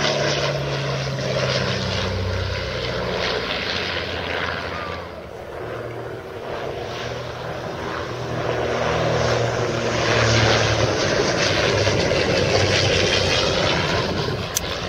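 A de Havilland DH89 Dragon Rapide twin-engined biplane flying past, its piston engines and propellers droning. The engine note drops in pitch about two seconds in and dips about five seconds in. It then swells to its loudest about ten seconds in.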